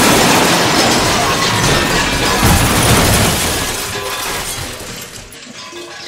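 A loud crash sound effect: a dense, noisy rumble with shattering debris that fades away over about five seconds.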